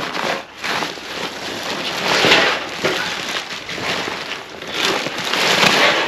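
Plastic wrapping film and a fabric carry bag rustling and crinkling as a packed float tube is pulled up out of the bag, louder about two seconds in and again near the end.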